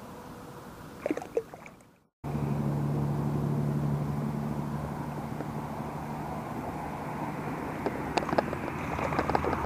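A distant engine running with a steady low drone that starts suddenly about two seconds in and fades a little. A few light clicks come near the end.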